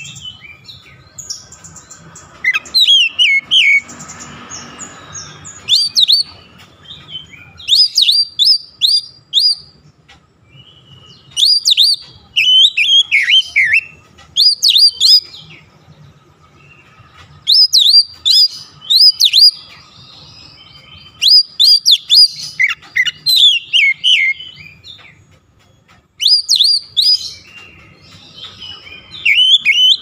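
Oriental magpie-robin (kacer) singing: bursts of quick, repeated sweeping whistled notes, sharp and clear, every couple of seconds with short pauses between.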